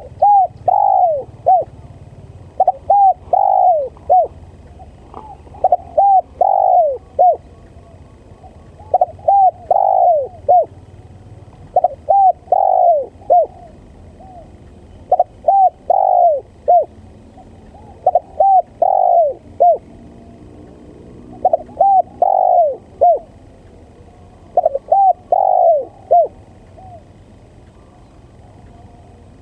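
Spotted dove cooing: a phrase of three to four coos repeated about every three seconds, nine times in all, the call used as a lure to draw in doves for trapping.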